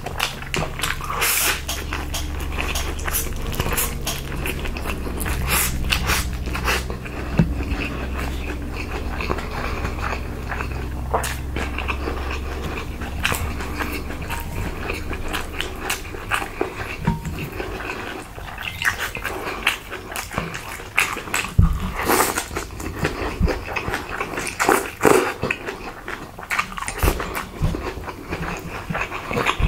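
Close-miked eating: chewing and crunching with many short, sharp smacking clicks, over a low steady hum that stops about halfway through.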